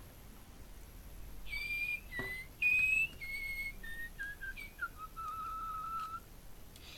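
Whistling: a run of short, clear whistled notes starting about a second and a half in, stepping down in pitch and ending in one longer, lower note held for about a second.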